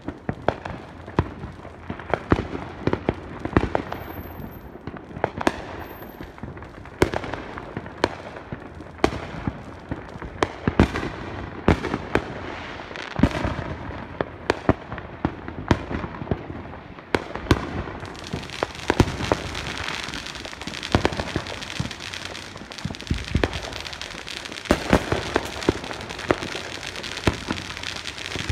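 Fireworks going off: an irregular, continual run of sharp bangs and pops, some louder and some fainter, growing denser with a crackling haze from about two-thirds of the way through.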